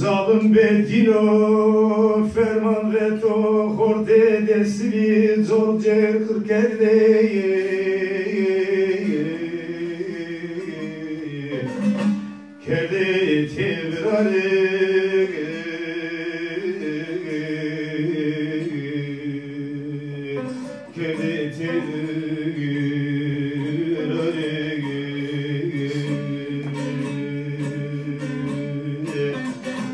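A man singing a slow folk song in long held notes and falling phrases, accompanying himself on a bağlama (long-necked plucked lute). The song breaks off briefly about twelve seconds in, then carries on.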